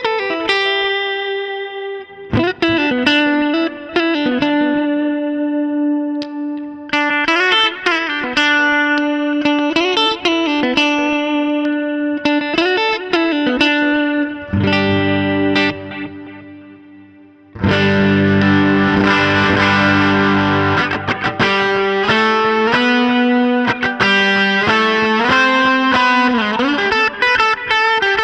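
Gretsch G5421 Jet Club electric guitar played through an amp-modelling effects unit with distortion. It plays single-note lead lines with notes bending in pitch, then a low chord that rings out and fades. About two-thirds of the way in, loud, heavily distorted chords and riffs come in.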